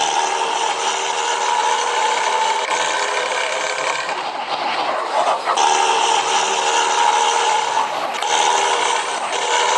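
Langsung Jaya bus, a loud steady drone of several held tones that dips briefly twice, a little before halfway and again about four-fifths through.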